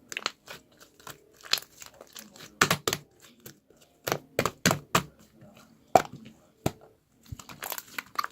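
Irregular crinkling and tearing handling sounds, in sharp, uneven clicks and rustles.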